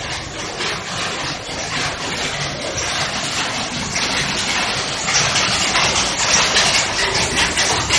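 Jacquard looms weaving silk saree fabric: a rhythmic mechanical clatter of repeated sharp strokes over a steady machine drone, growing louder about five seconds in.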